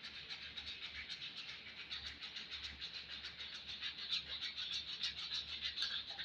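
Rapid, scratchy scraping strokes of a hand tool working the steel of a Harbor Freight fireman's hatchet. The strokes run on continuously and stop just before the end.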